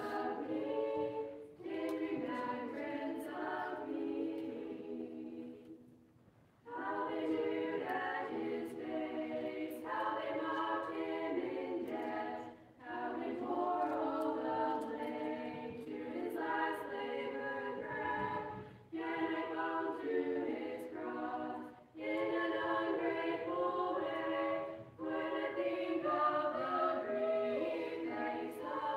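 A small mixed choir of boys and girls singing a cappella, in phrases with short pauses for breath between them, the longest about six seconds in.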